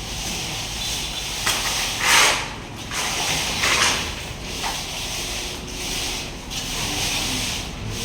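Repeated rough scraping strokes, each lasting about half a second to a second, with the loudest stroke about two seconds in.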